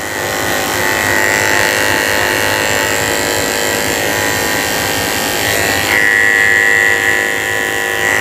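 Cordless electric dog-grooming clippers with a #30 blade running steadily with a buzzing hum as they shave the pads of a Yorkshire terrier's paw. The hum gets louder about six seconds in.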